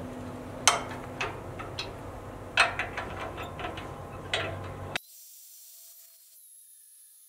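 Hand wrench working bolts that hold a steel rail to a truck frame: a handful of sharp metal clinks and scrapes, irregularly spaced. About five seconds in the sound drops abruptly to a faint hiss.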